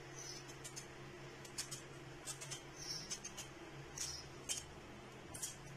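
Kitchen knife cutting through watermelon rind: about a dozen short, crisp cuts at an uneven pace, over a faint steady hum.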